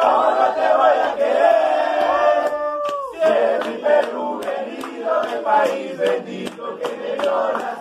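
Crowd of football fans chanting and singing together, with a rhythm of sharp hits running through the second half.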